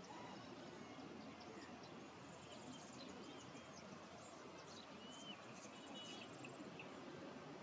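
Faint natural outdoor ambience: a steady low hiss with scattered faint, high chirps and ticks and a few short whistled notes from small birds.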